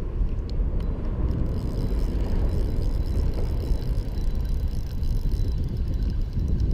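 Wind buffeting the microphone in a steady low rumble, with a few faint clicks about half a second in.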